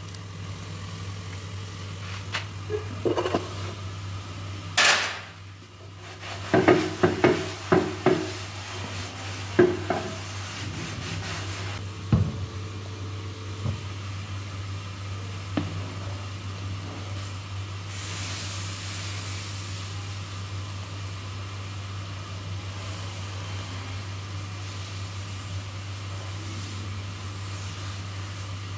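Kitchen utensils knocking and scraping against a clay griddle pan in a string of sharp clatters during the first ten seconds, over a steady low hum. A brief hiss comes in about two-thirds of the way through.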